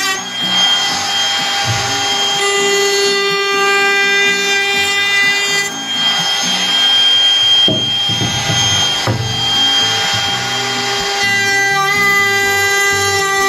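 DeWalt DCW600 cordless compact router running at high speed with a steady whine, cutting along the edge of a wooden board. There are two stretches of rough cutting noise, with a brief break about halfway through, and the router runs free near the end. Background music plays underneath.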